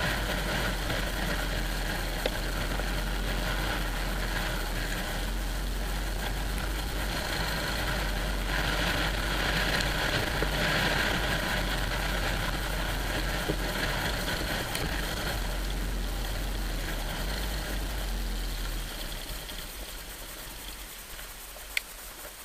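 Off-road trail motorcycles riding along a rough lane, their engines running steadily. The sound drops noticeably near the end as the bikes slow down, with one sharp click just before the end.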